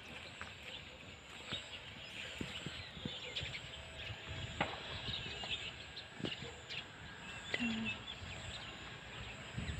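Outdoor rural ambience: faint bird chirps here and there over a steady background hiss, with scattered soft clicks.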